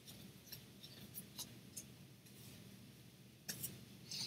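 Faint rustling and soft crackles of a folded paper booklet being handled and opened by hand, with a louder crinkle about three and a half seconds in.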